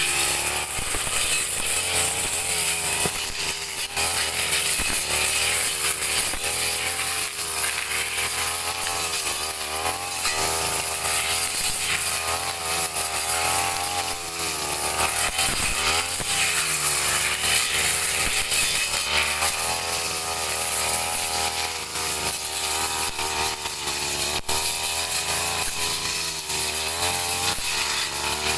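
Petrol brush cutter running at high speed while clearing grass, its engine pitch rising and dipping continually as it works.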